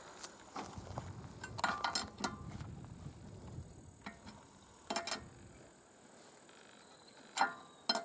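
Metal clinks of a wheel brace working the wheel nuts on a 4x4's wheel during a tyre change: a few short, sharp clinks in small clusters, around two seconds in, again around five seconds, and near the end.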